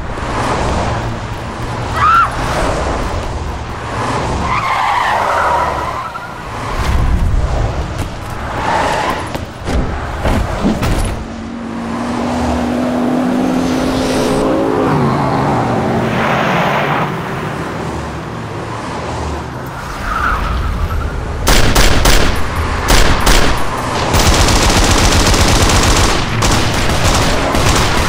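Car chase sound effects: car engines running and tyres squealing in bursts. About two-thirds of the way through, a long stretch of rapid automatic gunfire starts and carries on to the end.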